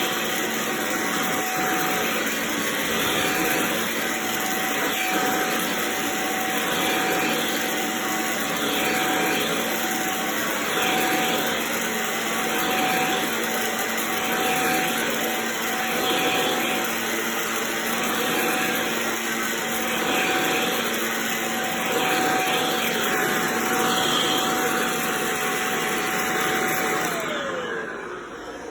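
Shark corded vacuum cleaner running steadily with a motor whine over its airflow noise, the whine sliding down in pitch as it is switched off and spins down near the end.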